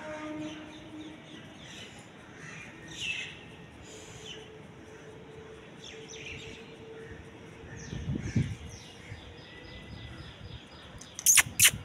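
Small birds chirping over and over in the background, short quick calls. A brief low thud about eight seconds in, and two loud sharp clicks close together near the end, the loudest sounds here.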